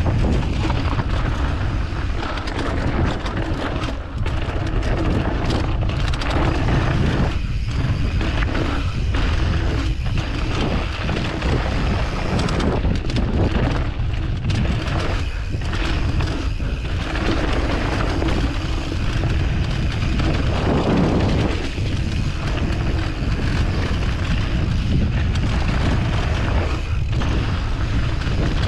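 Wind buffeting an action camera's microphone during a mountain bike descent on a dirt trail: a loud, steady low rumble with short dips.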